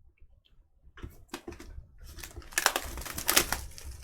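Packaging on a sealed trading-card box being torn and crinkled open. Scattered crackles begin about a second in and turn into a dense, louder run of crinkling in the second half.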